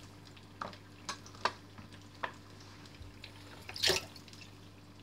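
A few light knocks and taps on a wooden cutting board as garlic cloves are smashed, with a louder knock about four seconds in, over a steady low hum.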